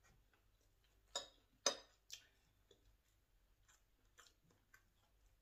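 Metal spoon scraping and clinking against a plate of fried rice, three short scrapes in quick succession about a second in, followed by faint chewing and mouth clicks.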